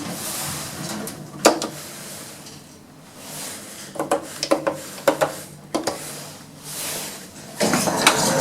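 ThyssenKrupp hydraulic lift's mechanism and doors: a sharp click a little past a second in, a run of clicks and knocks about midway, then a sliding rush near the end as of the lift doors moving, over a faint steady hum.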